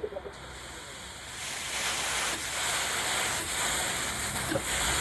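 A loud, steady hiss like rushing air or gas, starting about a second and a half in.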